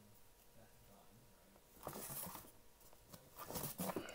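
Comic books being flipped through by hand in a cardboard box: a brief rustle of covers sliding past each other about two seconds in, then a few light taps near the end.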